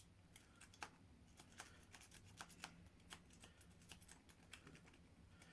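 Near silence with faint, irregular small clicks and rustles, the sound of a Master No. 3 padlock and pick being worked by hands in thick mittens.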